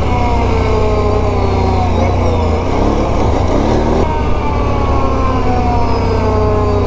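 Can-Am Renegade 1000 ATV's V-twin engine running under way on a dirt trail, its pitch easing slowly down, then rising briefly about three seconds in before easing down again.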